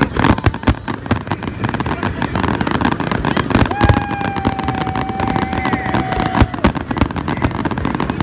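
Aerial fireworks bursting in quick succession: a dense run of bangs and crackling. Starting about four seconds in, a steady high tone sounds for about three seconds over the bursts.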